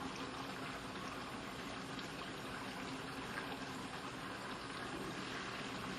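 Bosch Ascenta 46 dBA built-in dishwasher running mid-wash with only its motor spinning and the heater off: a steady, quiet hum under an even swish of water spraying inside the tub.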